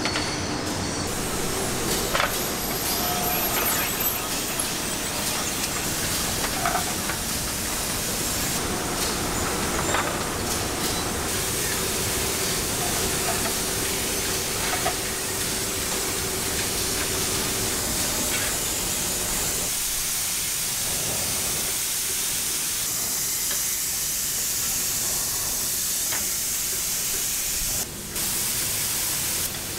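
Factory coating-line noise: a roller conveyor and machinery running with a few light metal knocks as pans are handled, then from about twenty seconds in a steady high hiss of spray guns coating the aluminium frying pans.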